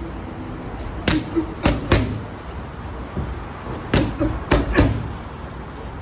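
Boxing gloves striking focus mitts in two quick combinations of sharp smacks, three about a second in and three or four more about four seconds in.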